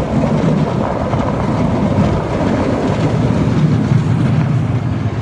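Roller coaster train running along its track: a loud, steady rumble of wheels on rail mixed with rushing air on the phone's microphone.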